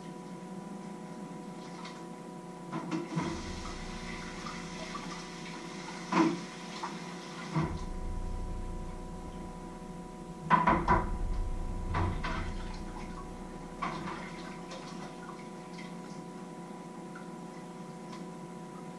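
Kitchen work at the stove: a few sharp metal knocks and clatters of pots, lids and a flat metal grater being handled, with two stretches of rushing noise, over a steady electrical hum.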